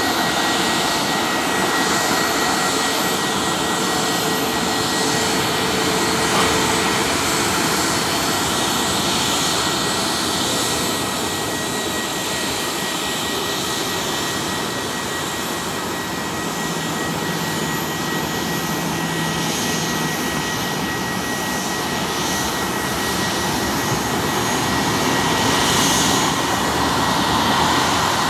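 Turbofan engines of a Boeing 737 running at taxi power: a steady jet rush with a thin high whine held throughout. It grows a little louder near the end as the aircraft comes closer.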